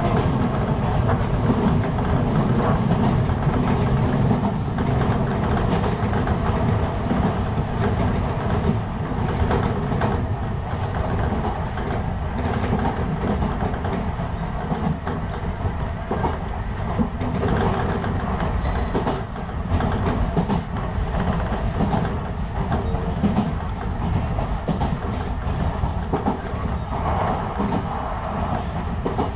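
Enshu Railway electric train running at speed, heard from inside the front car: a steady low rumble of wheels on rail with irregular clacks over rail joints.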